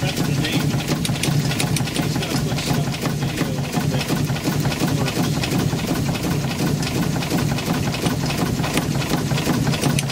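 Small steam launch engine running steadily, its crank, valve gear and engine-driven pump plunger making a fast, even mechanical clicking over a steady low hum.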